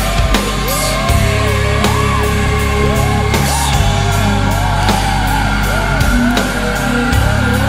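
Heavy rock music with a steady drum beat, a thick bass line and a wavering lead melody.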